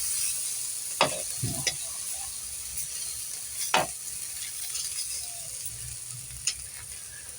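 Food sizzling in a frying pan, a steady hiss, with a few sharp clicks of a utensil against the pan.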